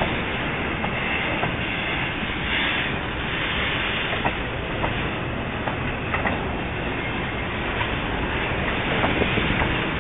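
Freight train of covered hopper wagons rolling past close by. Its steel wheels make a steady rumble on the rails, with scattered sharp clicks.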